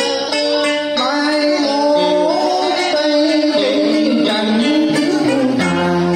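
Amplified live music through loudspeakers: plucked-string, guitar-like accompaniment with a voice singing a sliding, bending melody.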